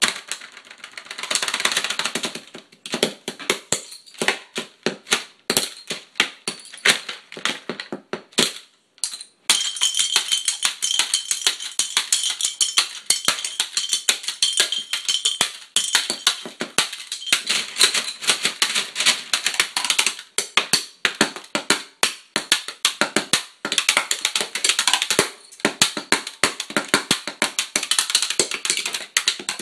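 Drumsticks beating a fast, improvised drum solo on a pile of plastic children's toys: rapid clattering hits on hollow plastic, with a short break about nine seconds in.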